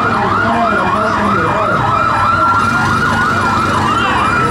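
Police vehicle siren in a fast yelp, sweeping up and down about three times a second. It briefly holds a steady high note near the middle, yelps again, then starts to glide down in pitch at the end.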